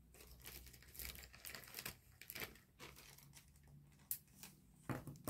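Faint, irregular soft rustles and light handling noises from wool yarn being wound and pressed around a small lycra-covered doll head by hand.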